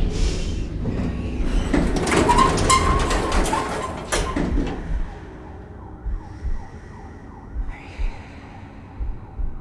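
Elevator car running with a loud mechanical rumble and clatter, which fades out about five seconds in. A low hum and a slow double thump repeating about every second and a half remain.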